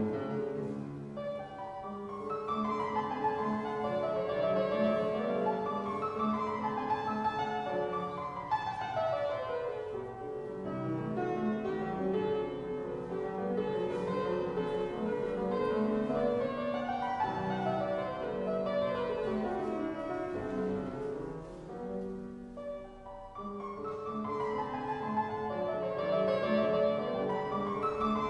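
Walter-style fortepiano, a copy by McNulty, playing a classical variation in fast running scales that rise and fall, with a brief softer passage a few seconds before the end.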